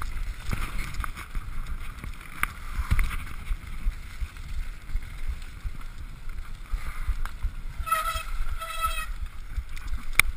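Downhill mountain bike running fast down a dirt forest trail, heard from a bike-mounted camera: a steady low rumble of wind and tyres on the dirt with sharp knocks and rattles from the bike over bumps. Two short squeals come about eight seconds in.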